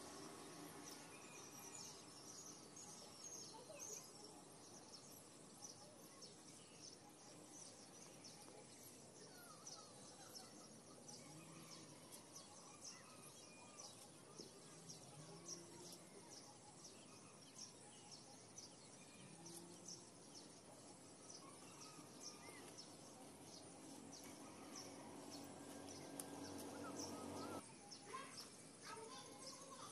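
Near silence: faint outdoor ambience with many small, high chirps from birds or insects.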